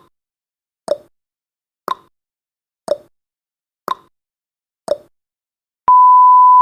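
Countdown timer sound effect: six clock-like ticks, one a second, alternating higher and lower like a tick-tock. Just before the end, a loud steady single-pitched beep starts as the countdown reaches zero.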